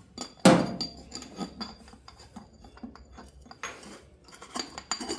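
Metal parts and tools being handled: a loud metallic clank about half a second in, followed by light clinks and taps and a brief scrape near the end.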